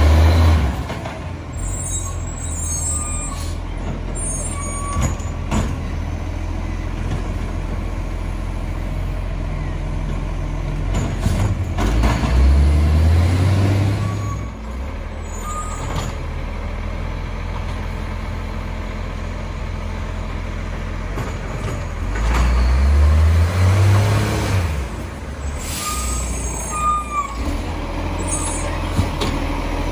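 Acco side-loader garbage truck's diesel engine idling, revving up with a rising pitch three times as the truck works, with short hisses of air from the brakes.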